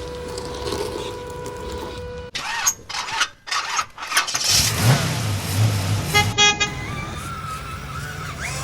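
Edited run of vehicle sounds: a steady hum cuts off abruptly and choppy bits follow, then a short horn toot about six seconds in and an engine winding up in pitch near the end.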